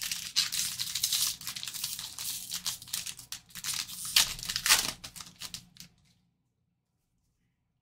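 Trading card pack wrapper being torn open and crinkled, a dense run of crackles and rips that stops about six seconds in.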